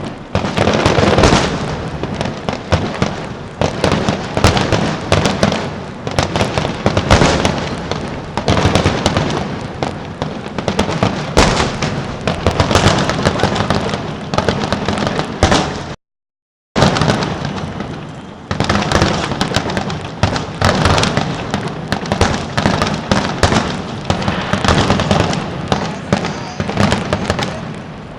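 Fireworks display: a dense, continuous barrage of bangs and crackling. The sound cuts out completely for under a second about sixteen seconds in.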